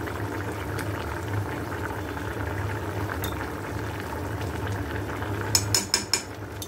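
Thick duck curry with potatoes bubbling at a steady boil in a metal pot, over a constant low hum. Just before the end, a spoon stirs the curry and clinks against the pot several times.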